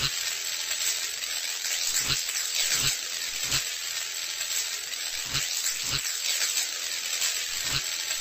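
Steady hissing static with a handful of short crackling pops at irregular intervals.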